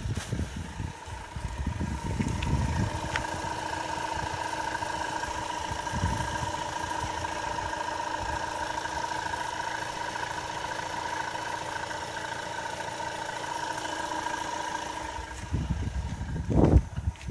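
A pump running with a steady high whine, the strange pump noise in question, which stops about fifteen seconds in. Low rumbling thumps come at the start and again near the end, the loudest just before the end.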